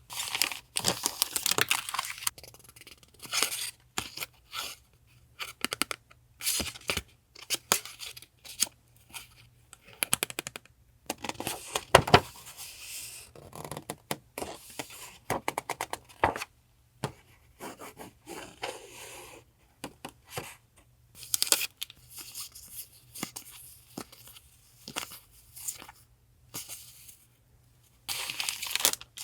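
Paper being torn and handled: irregular bursts of tearing and rustling with short pauses and a few sharp snaps, over a faint steady hum.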